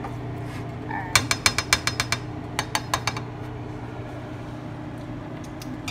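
A quick run of sharp clicks, about a dozen in a second, then a few more after a short pause, over a steady low hum.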